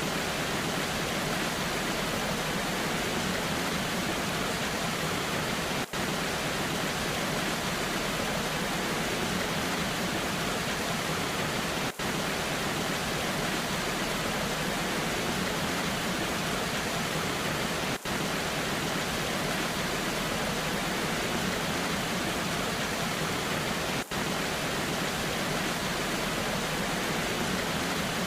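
Waterfall in the rain: a steady, even rush of falling water, with a brief dip in level about every six seconds.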